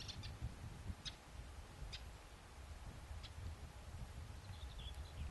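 Small birds giving short, high chirps about once a second, with a brief warbling call near the end, over a low rumble of wind on the microphone.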